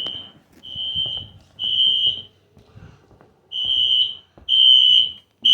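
Wheelock NS fire alarm horn sounding a loud, high, steady electronic tone in the temporal-three evacuation pattern: three short blasts, a pause of about a second, then three more.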